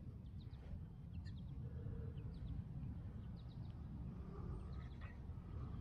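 Quiet background: a low rumble with a few faint, short bird chirps scattered through.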